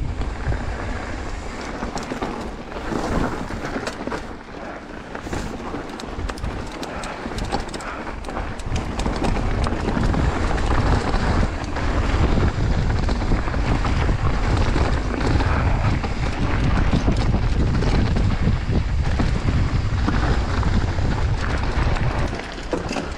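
Wind buffeting the microphone as a mountain bike rolls down a rocky dirt trail, with tyres crunching over gravel and small knocks and rattles from the bike. The wind rumble grows louder about ten seconds in.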